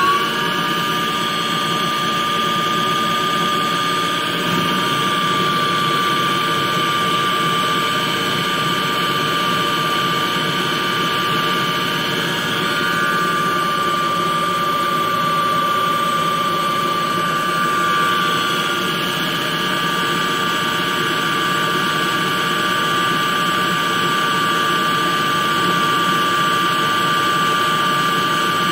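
Spindle of a DIY CNC lathe running at speed, a steady high-pitched motor whine that has just finished spinning up, its upper tones wavering slightly a couple of times.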